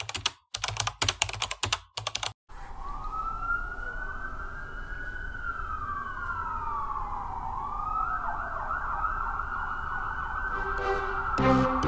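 Rapid keyboard typing clicks for about two seconds, then a police siren wailing in slow rising and falling sweeps. A second, faster warbling siren joins in about eight seconds in, and music starts just at the end.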